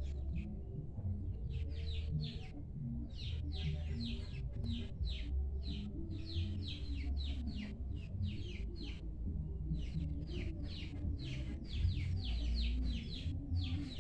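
Small birds chirping in quick runs of short, downward-sliding chirps, several a second, with brief pauses between runs. A steady low rumble runs underneath.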